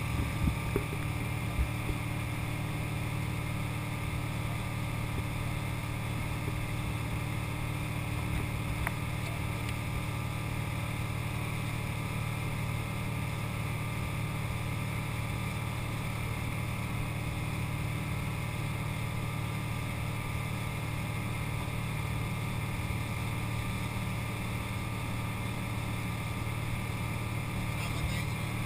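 Tow boat's engine running steadily at towing speed over the rush of its churning wake, with a few light knocks in the first two seconds.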